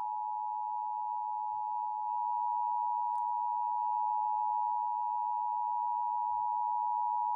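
Emergency Alert System attention signal: the steady two-tone 853 and 960 Hz alarm, held unbroken, announcing a Child Abduction Emergency (Amber Alert) broadcast over FM radio.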